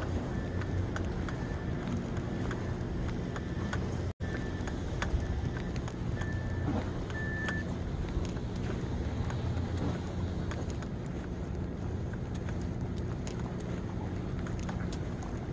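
Steady low outdoor rumble, mostly wind buffeting the microphone, by the sea. A faint high-pitched beep repeats roughly every two-thirds of a second until about seven seconds in, and the sound cuts out for an instant about four seconds in.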